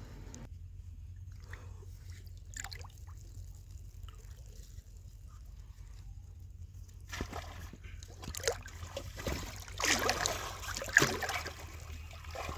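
Pond water sloshing and splashing as a person wades in and dips a large metal cooking pot into it, building from about seven seconds in and loudest near the end, over a steady low hum.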